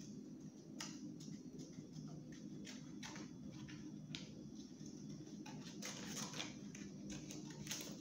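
Small craft scissors snipping through brown paper in short, irregular snips, with the paper rustling between cuts, over a steady low hum.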